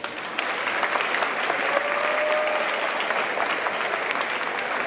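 Crowd applauding in a school gymnasium. The clapping starts suddenly and holds steady.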